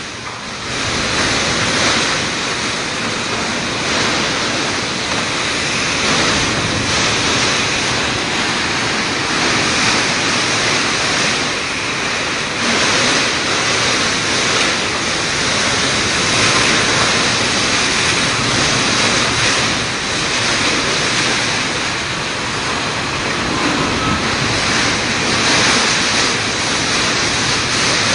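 Typhoon-force wind and heavy rain, a loud steady rushing that swells and eases with the gusts.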